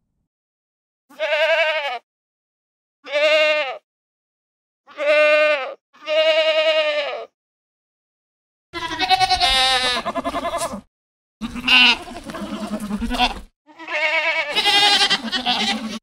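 Goat bleating. There are four short, quavering bleats, then, after a pause about nine seconds in, three longer, rougher bleats over a low background rumble.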